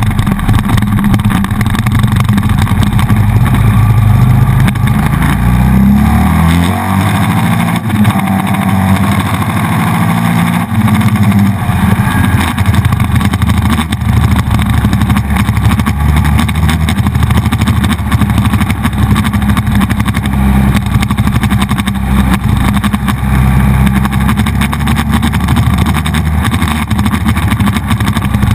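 Buell XB9SX's 984 cc air-cooled V-twin engine running steadily as the motorcycle rides along, heard loud from a handlebar-mounted camera. Its note shifts about six to eight seconds in.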